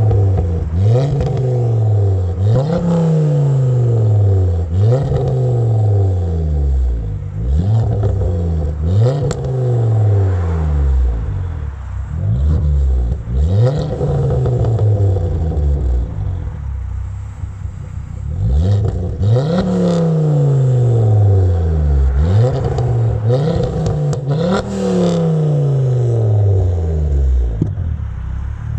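Stationary Mk2 Ford Focus RS, a tuned turbocharged 2.5-litre five-cylinder on a Mongoose Section 59 exhaust, revved again and again. Each rev climbs quickly and falls away, with pops and bangs on the overrun from the flamer exhaust, which is firing flames out of the tailpipe.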